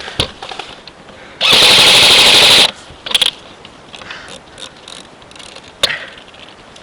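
Airsoft rifle firing one full-auto burst of just over a second, very close and loud. A few single sharp cracks follow later.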